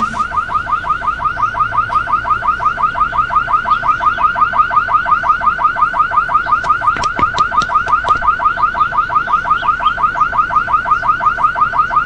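Car alarm sounding continuously, a rapid train of repeated rising whoops, several a second. A few sharp clicks come about seven seconds in.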